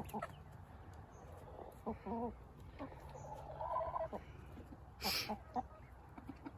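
Chickens clucking softly: a few short calls about two seconds in and a longer, drawn-out call around the middle, with a brief scratchy noise about five seconds in.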